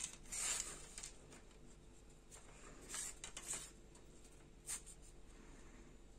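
Faint rubbing and scraping as a Kaida Murcielago 5 m telescopic bolognese rod is handled and packed away, in three short bursts: right at the start, around three seconds in, and a brief one near five seconds.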